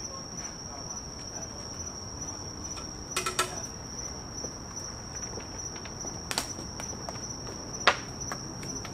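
An acorn falling out of an oak tree and hitting the wooden deck with a sharp knock near the end, over a steady high insect chirr. A few fainter knocks come about three seconds in and again at about six and a half seconds.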